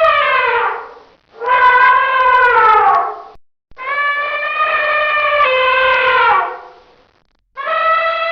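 Elephant trumpeting: a series of loud, brassy calls, each one to three seconds long with short pauses between, most sliding down in pitch at the end.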